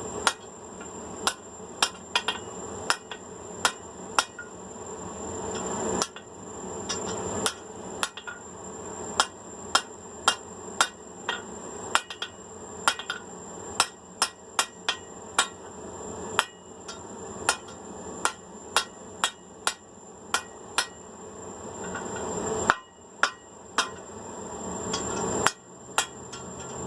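Hand hammer striking hot steel bar on an anvil, forging an eye on the end of a 5/8-inch round rod, at about one to two blows a second with brief pauses near the end. A steady high-pitched whine runs behind the blows.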